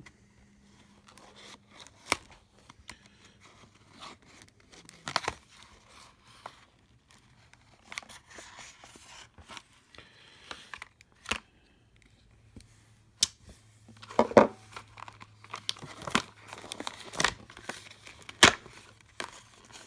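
Retail knife packaging being cut and torn open by hand with a knife: tearing and crinkling with scattered sharp clicks. It gets busier and louder in the last several seconds.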